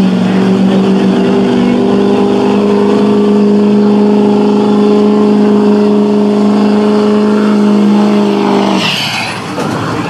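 Diesel four-wheel-drive Ford Super Duty pickup engine held at full throttle, running at a steady high pitch as it drags a weight-transfer pulling sled. About nine seconds in the engine drops off, with a brief high whistle as the pull ends.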